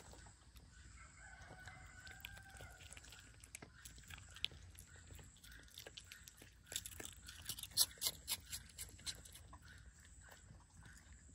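A rooster crowing faintly in one long call about a second in, then a quick run of sharp clicks and crunches near the middle, the loudest part.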